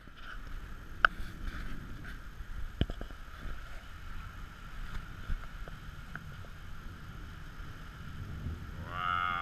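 Steady storm noise of wind and rain on a hotel balcony during Hurricane Flossie, with low wind rumble on the microphone and two sharp clicks, about one and three seconds in. A person starts speaking near the end.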